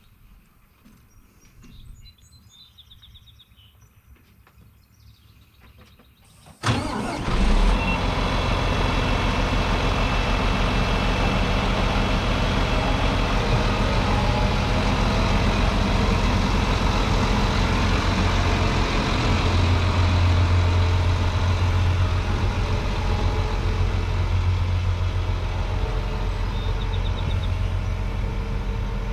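Quiet at first with a few faint bird chirps. About seven seconds in, a heavy farm machine's engine comes in suddenly and runs steadily and loudly to the end.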